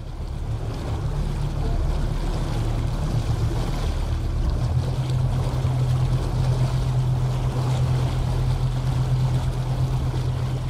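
Tugboat's diesel engine running with a steady low hum that grows stronger about halfway through, over a steady rushing noise.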